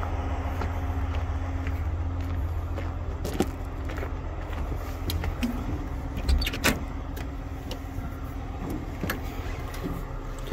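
Case IH Quadtrac 9380 tractor's diesel engine idling with a steady low rumble. Sharp clicks and a clunk from the cab door handle and latch come about six and a half seconds in.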